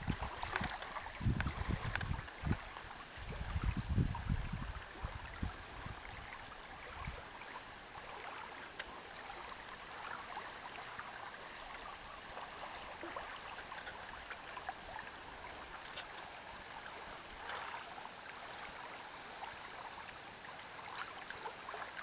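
Wind gusting against the microphone for the first several seconds, then a steady outdoor hiss of light wind and small waves lapping on the lake.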